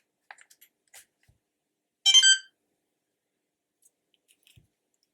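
A few small plastic clicks as the repaired balance lead is plugged into a LiPo battery checker, then a single high electronic beep lasting about half a second as the checker powers up from the pack.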